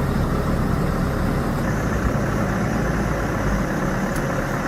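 Heavy diesel vehicle engine running steadily, a continuous low rumble, as a tractor pulls a truck up to a lift table.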